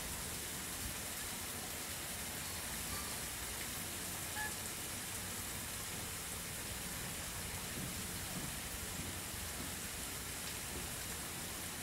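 A steady, even hiss like light rain, with a couple of faint, brief peeps about three and four seconds in.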